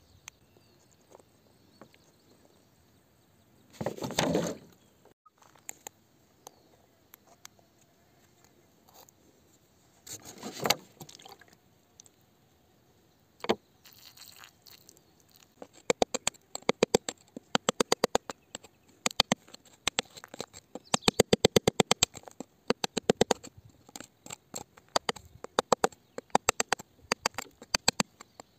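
Metal digging tool picking and tapping at rock around a crystal: rapid runs of sharp clicking strikes through the second half, after two short noisy bursts and a single click earlier on.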